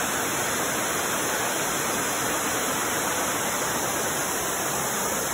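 Steady rushing of flowing water, an even hiss with no distinct strokes or rhythm.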